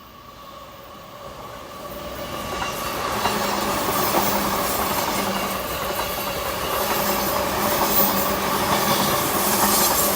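Chuo Line electric train approaching and running past, growing louder over the first three seconds and then holding steady as a rush of wheels on rail with a high hiss and a steady hum underneath.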